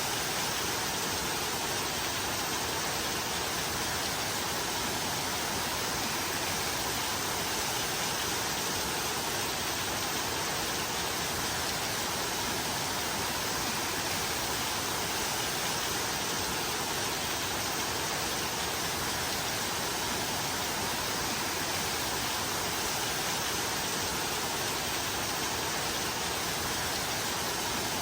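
Steady rain: an even, unbroken hiss of falling rain with no separate drops or thunder standing out.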